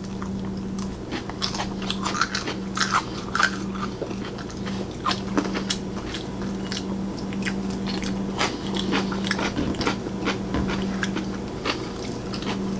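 Close-up sounds of people biting and chewing food, with many short, irregular mouth clicks and smacks over a steady low hum.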